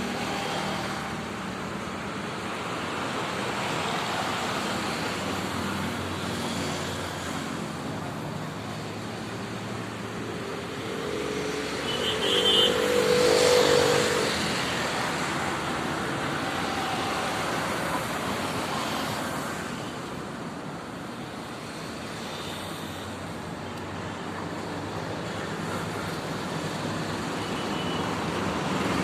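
Steady road traffic noise, rising to a louder swell with a brief pitched sound about twelve to fourteen seconds in, as of a vehicle passing close by.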